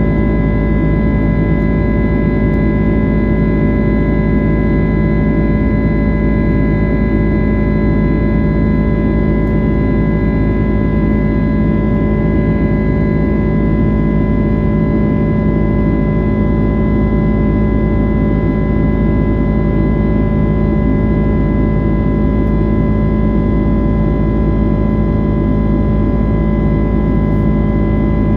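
Steady jet cabin noise of a Boeing 767-300ER climbing out after takeoff: the General Electric CF6-80C2 engines' even hum with several steady tones over a rushing airflow, unchanging throughout.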